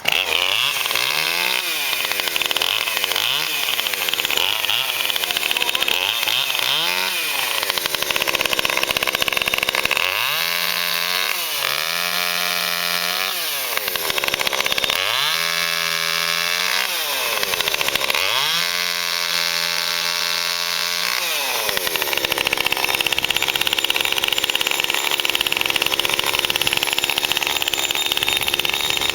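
Cheap Bunnings petrol chainsaw, a two-stroke, catching on the pull cord and revved: four short blips of the throttle, then four longer revs that drop back between each, then held at a steady high speed for the last third.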